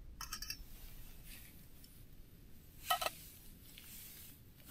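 Light metallic clinks of camping-stove and cook-pot parts being handled: a few quick ringing clinks near the start, then a sharper double clink about three seconds in.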